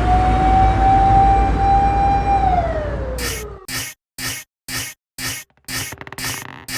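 A siren-like tone over a low rumble, held steady and then falling in pitch. About three seconds in, a Japanese railroad crossing alarm takes over, its bell striking about twice a second.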